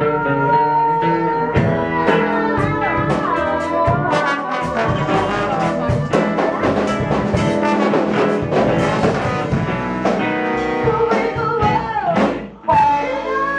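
A live band playing upbeat dance music with a steady beat, dropping out briefly near the end.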